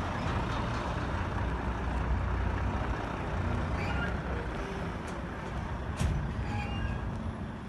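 Heavy diesel truck engine idling: a steady low rumble, with one brief sharp sound about six seconds in.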